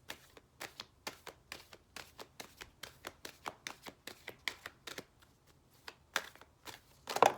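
A deck of oracle cards being shuffled by hand: a run of light, quick card taps and slaps, several a second, with a louder flurry near the end.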